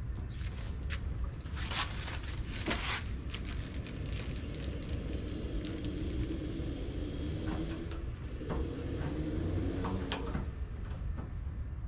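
Hands working at a pickup's raised hood, fitting a plastic hood bug deflector: light clicks and a rustle of plastic about two seconds in, over a steady low rumble. A faint hum sounds from about six to ten seconds in.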